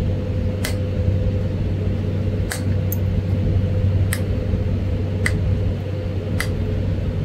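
Flintknapping a Florida coral arrowhead: six sharp clicks, about a second apart, as small flakes snap off the stone's edge. A steady low hum runs underneath.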